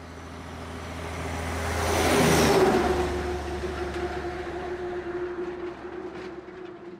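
Intro sound effect: a whooshing swell that builds to a peak about two and a half seconds in, then dies away over a steady low drone and a held tone, fading out near the end.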